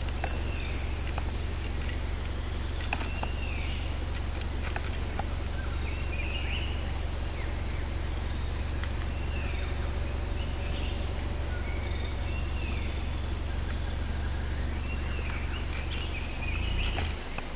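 Forest ambience: a bird gives short arched calls every couple of seconds over a steady high insect drone and a constant low rumble.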